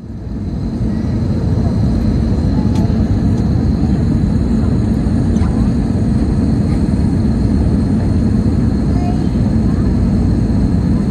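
Steady low roar of cabin noise inside an Airbus A320neo on its approach, from the Pratt & Whitney geared turbofan engines and the air rushing past the fuselage, with a faint steady high whine over it. The sound fades in over the first second or so.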